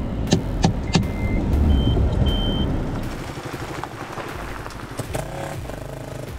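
Paintballs smacking against the Isuzu D-Max pickup, about three hits a second, heard from inside the cab over a low rumble. A few short electronic beeps follow. Then the stuck pickup's engine runs more quietly.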